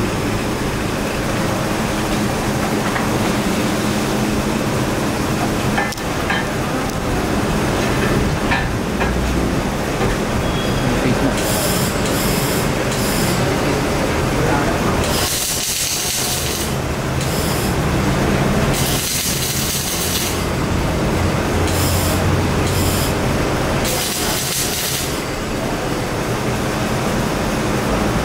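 Steady hum of welding machines, with the crackling hiss of arc welding coming in bursts of one to two seconds from about halfway on.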